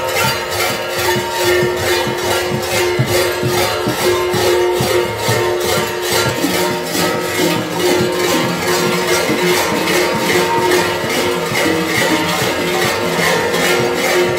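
Many large metal kuker bells (hlopki) clanging together, shaken in a steady rhythm of about three to four strokes a second, with their ringing tones overlapping.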